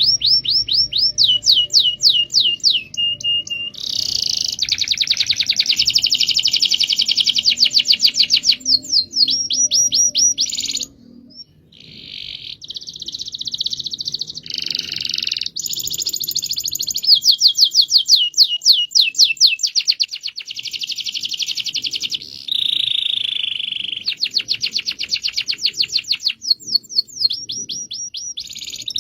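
Domestic canary singing long rolling trills: fast strings of repeated notes and quick falling sweeps, with a short pause about eleven seconds in.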